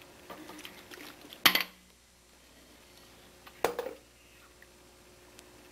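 Two sharp knocks with a short ring, about a second and a half in and again near four seconds, among a few fainter clicks.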